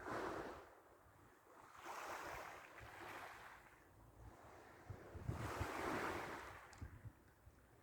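Waves washing in on a shore, three soft swells of surf that each rise and fade, with faint low rumbles between them.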